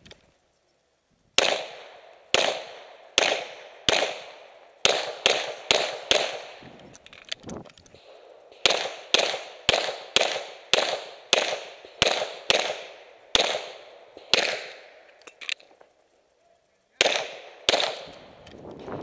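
Rapid handgun fire: a long run of sharp pistol shots, often two or three a second, each with a short echo, broken by a pause of a couple of seconds late in the string.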